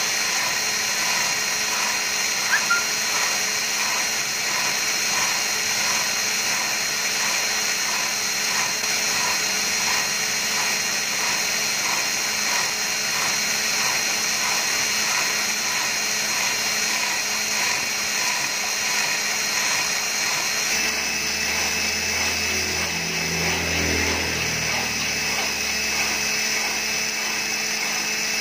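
Electric drill running steadily, spinning a blind-rivet pin while a flat file scrapes along it to taper it into a carburettor jet needle, with a faint regular tick about one and a half times a second. The tone shifts and gets a lower hum about two-thirds of the way through.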